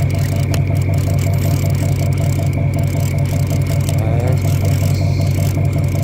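Fishing boat's engine running steadily with a loud low hum, and a thin high-pitched whine held throughout.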